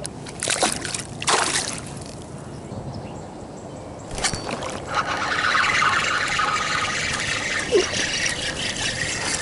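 Lake water splashing and trickling: two short splashes in the first couple of seconds, then a steady trickling hiss from about five seconds in.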